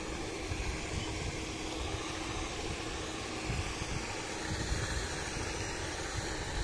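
Paddlewheel fish-pond aerator running, a steady mechanical hum with a low rumble.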